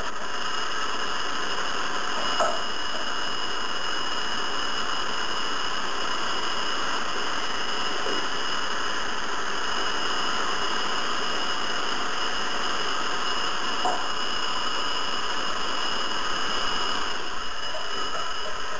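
Hair dryer running steadily: a constant rush of air with steady high motor whine tones, and two small clicks, about two seconds in and again near fourteen seconds.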